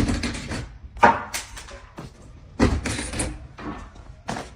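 A series of sudden knocks and clatters in four bursts, roughly a second apart.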